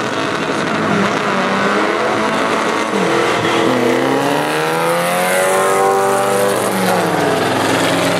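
An air-cooled VW Beetle and a V8 Ford Mustang launching off the drag-strip line, engines revving hard as they accelerate, the pitch climbing over several seconds and dropping near the end.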